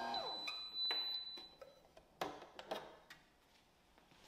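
Bread machine's kneading motor winding down to a stop, its hum falling in pitch, followed by a high beep from the machine lasting about a second. Then a few clicks and knocks as the bread pan is unlocked and lifted out.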